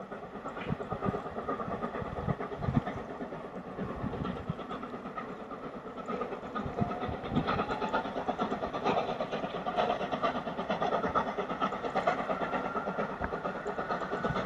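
FS 740 steam locomotive approaching under steam, its exhaust chuffing in a dense, uneven beat, growing louder as it draws nearer.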